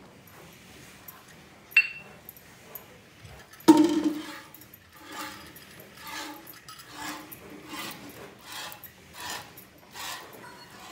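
Cow being milked by hand into a steel pail: jets of milk squirt into the metal pail in a steady rhythm of about two a second through the second half. Earlier come a short high metallic clink and then a loud metal clank with a brief ring.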